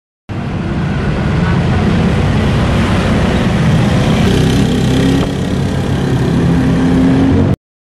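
Small automatic motor scooter's engine running as it rides past and away, with road noise; a slight rise in engine pitch near the end. The sound cuts in and cuts off abruptly.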